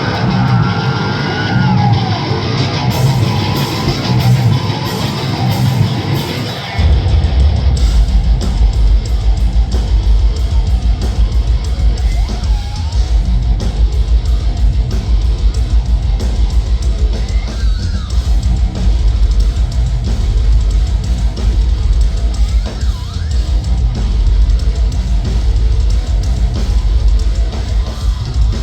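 Live heavy metal band playing loud, with distorted guitars and drums. About a quarter of the way in the full band comes in hard, with a fast, dense drum pattern.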